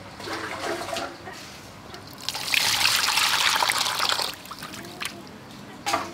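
Water running into a metal bowl and splashing over a raw cut of beef for about two seconds in the middle, with a short knock near the end.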